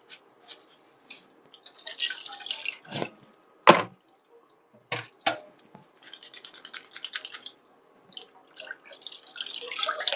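Dishes being washed by hand in a kitchen sink: water splashing in short spells, with a few sharp clinks of crockery, the loudest a little under four seconds in.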